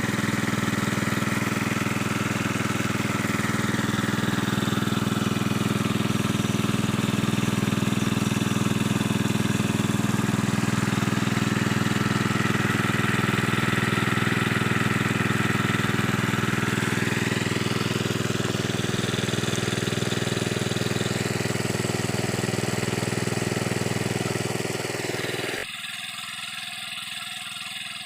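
Small water-pump engine running steadily on LPG from a gas cylinder, then shut off near the end.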